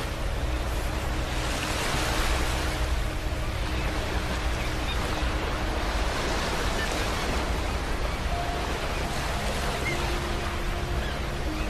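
Ocean surf: waves breaking and washing on a beach in a continuous rush that swells and eases a few times, with a deep rumble underneath.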